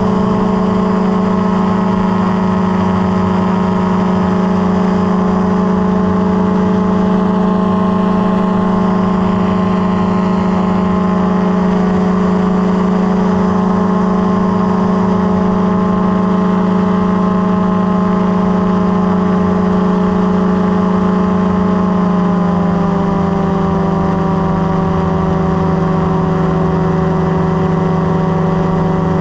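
Light aircraft's propeller engine running steadily in flight, a loud even drone. About 22 seconds in, its pitch drops slightly as the engine is throttled back a little.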